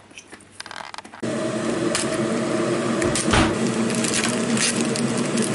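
A steady motor hum starts abruptly about a second in and keeps running, with plastic crinkling, a few clicks and one low thump as a packet of bacon rashers is handled.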